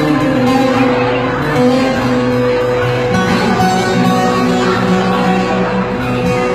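Live amplified band music, an instrumental passage led by an electronic keyboard with long held notes.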